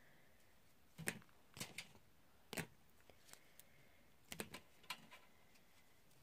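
Near silence broken by a few faint, scattered clicks and taps, in small clusters about a second apart.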